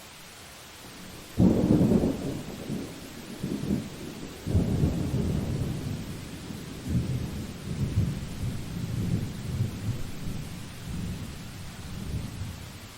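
Steady rain hiss. About a second and a half in, a loud thunderclap breaks and rolls on as low rumbling in several waves for about eleven seconds, dying away near the end.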